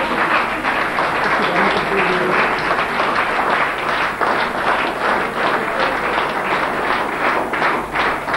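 Audience applauding: many hands clapping at once, dense and steady throughout.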